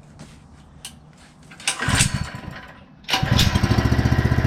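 Small single-cylinder pull-start engine on a mini bike being started: a first pull fires briefly and dies, then about three seconds in it catches and runs with a rapid, even beat.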